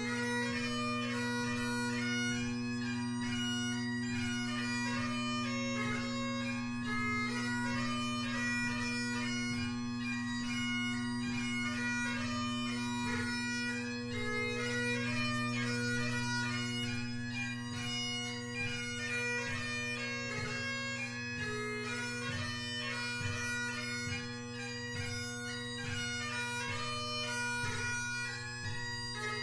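Great Highland bagpipe playing a tune: steady drones sound under the chanter melody, which is broken up by many quick grace-note ornaments.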